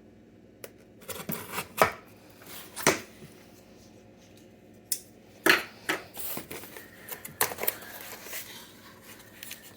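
A parcel being opened by hand: irregular rustles, scrapes and sharp clicks of packaging being cut and pulled apart, the loudest about two seconds in and again past the middle.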